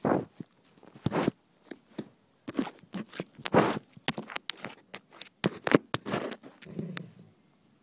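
Golden retriever puppy nosing and mouthing an iPhone on the floor, heard as irregular scuffs, bumps and rubbing right on the phone's microphone.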